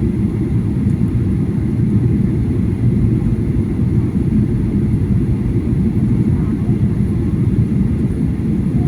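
Jet airliner cabin noise in flight: a steady, low drone of engines and airflow heard from inside the passenger cabin.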